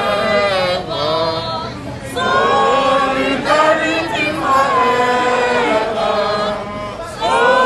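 A crowd of protesters singing together, many voices on long held notes in phrases, with brief breaks between lines.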